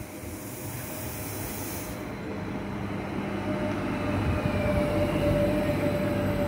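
CFL class 2300 (Stadler KISS) double-deck electric multiple unit running along the platform, its rumble and steady electric whine growing louder as it comes past.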